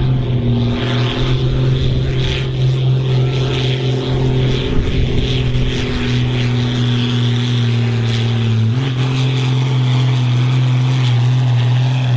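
New Holland 8970 tractor's diesel engine working hard under full load as it pulls a weight sled, black smoke from the stack. A loud, steady note that sags slowly, then picks up a little about nine seconds in.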